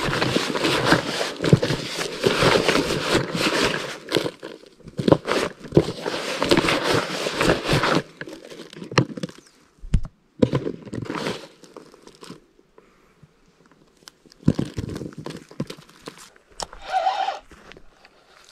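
Dense rustling and crinkling with crunches and knocks for about eight seconds, then scattered crunches and knocks. A brief higher tone sounds near the end.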